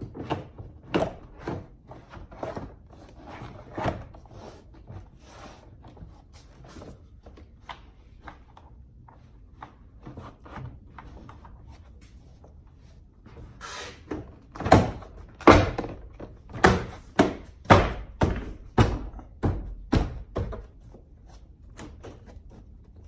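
Plastic interior door trim panel being pressed and knocked back onto an SUV door, its clips popping into place. Light knocks and rattles come first, then a run of about a dozen loud, sharp thumps in the second half.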